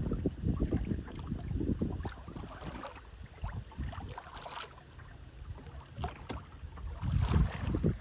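A boat under way on a lake: a steady low hum with rushing water and wind noise that swells irregularly, loudest near the start and again about seven seconds in.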